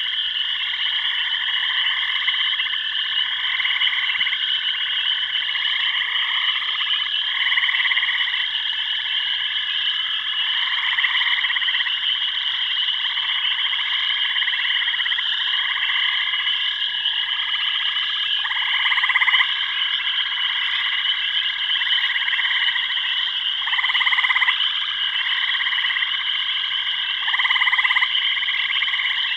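Chorus of frogs calling in overlapping croaks, each call about a second long, over a steady high-pitched trill.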